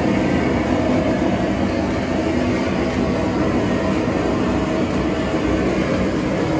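Handheld gas burner torch: a steady, loud rushing of the flame as it singes the bristles off a slaughtered pig's skin.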